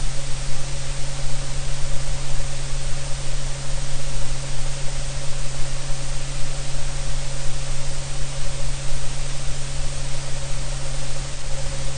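Steady loud static-like hiss with a constant low hum underneath, unchanging throughout.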